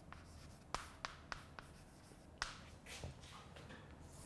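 Chalk writing on a blackboard: faint scratching strokes broken by about half a dozen sharp taps as the chalk strikes the board.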